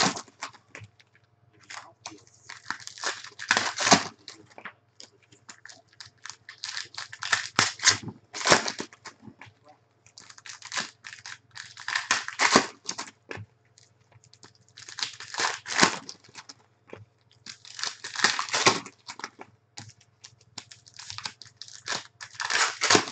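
Trading card packs being torn open and their plastic-foil wrappers crinkled, one pack after another, in loud bursts about every three to four seconds.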